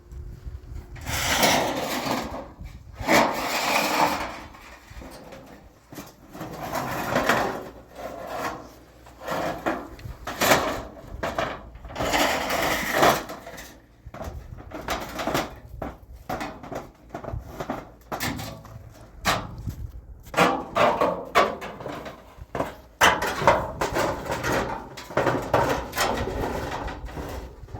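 Irregular scraping and rustling, followed by a run of sharp knocks and clicks: objects being handled and knocked together.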